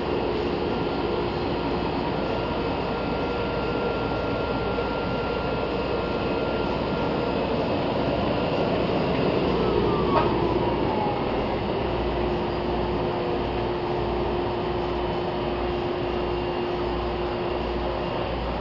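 Komori Lithrone 628 six-colour sheetfed offset press running with a steady mechanical hum and a few held tones. A falling whine passes midway, with a sharp click about ten seconds in.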